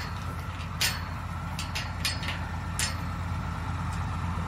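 Metal chain links clinking and rattling several times as a chain and rope are worked around a steel pipe gate, over the steady hum of a diesel tractor engine idling.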